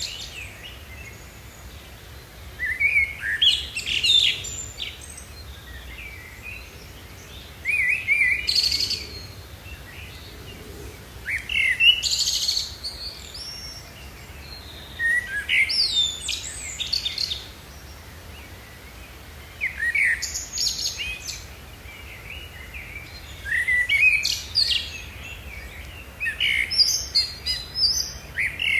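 Birds chirping and singing in short bursts of one to two seconds, about every four seconds, over a faint steady low background hum.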